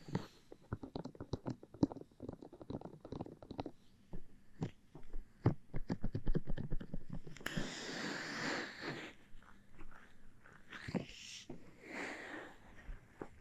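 Close-miked ASMR sounds: many quick soft clicks for the first few seconds, then breathy, whisper-like hisses about halfway through and again near the end.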